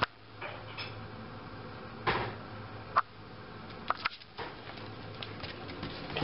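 Quiet indoor room tone with a few scattered soft clicks and knocks.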